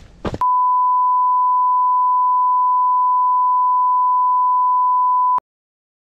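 A loud, steady beep tone at about 1 kHz, edited onto the soundtrack, lasting about five seconds and cutting off abruptly into dead silence. Just before it starts, a footstep crunches in snow.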